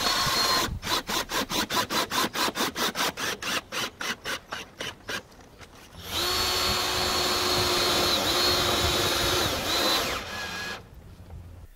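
Cordless drill with a nut-setter driving stainless roofing screws through rubber grommets into metal roofing to hold solar panel brackets. A short burst of motor, then a few seconds of rapid, regular clicking at about five a second, then a steady motor whine for about four seconds whose pitch dips briefly before it stops.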